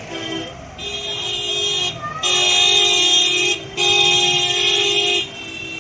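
Car horns of a slow-moving SUV convoy honking: one short toot, then three long blasts, the last two the loudest.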